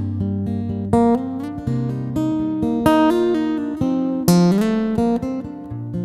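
Solo acoustic guitar playing a song's intro: chords strummed and left to ring, with a fresh strum about every second.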